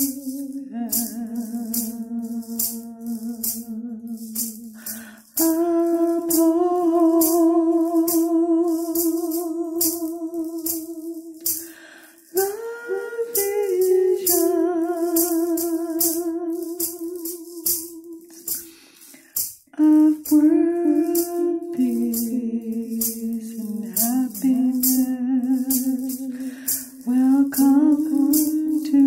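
Wordless singing: a voice holds long, wavering notes in phrases several seconds long, over a shaker keeping an even beat of a few strokes a second.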